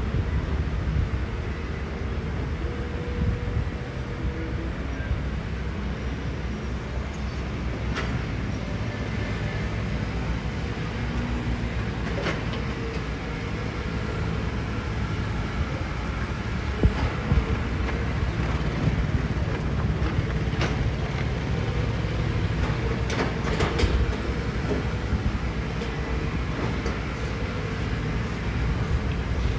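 Heavy construction machinery running steadily, a low engine rumble, with a few sharp clicks and knocks scattered through it.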